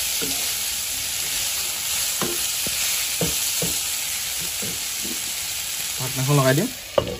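Pork, potatoes and banana flower stir-frying in oil in a nonstick wok: a steady sizzle, with the spatula scraping and knocking through the food about twice a second. Just after six seconds there is a short pitched squeal, then a sharp clack near the end.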